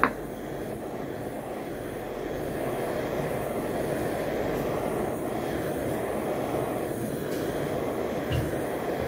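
Handheld butane torch flame burning steadily with an even rushing noise as it scorches a pine log slice, with one short knock at the very start.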